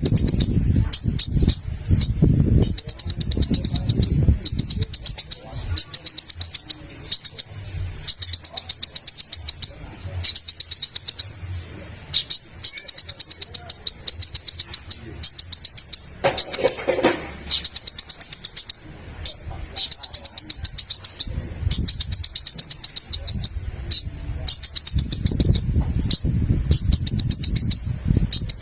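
Crimson sunbird (sogok ontong) singing hard: rapid, high-pitched chattering phrases repeated over and over with short breaks. A low rumble sits under the song at the start and near the end.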